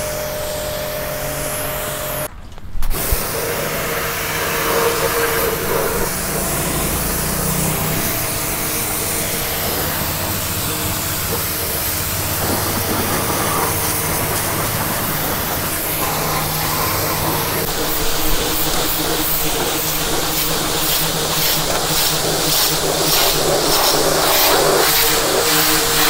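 Starq W8 2800-watt electric pressure washer running, its motor and pump humming under the steady hiss of the high-pressure water jet spraying onto a car's body and wheel. The sound cuts out briefly about two and a half seconds in.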